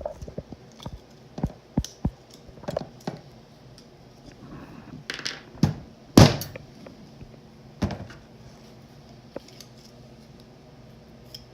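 Irregular metallic clicks and knocks of a tool working inside a hydraulic motorcycle fork tube, prying at a washer that won't come out; the loudest knock comes about six seconds in.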